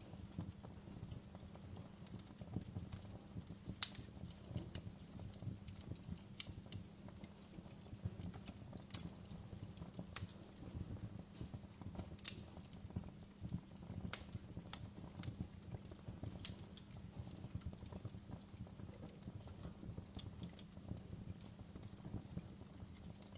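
Wood fire in a fireplace crackling: irregular sharp pops and snaps over a steady low rumble of the flames, with one louder pop about four seconds in.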